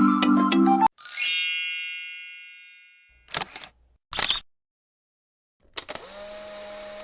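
Background music stops about a second in. A bright chime rings out and fades over about two seconds, then come two short clicks a second apart, and near the end a steady hiss with a low held tone.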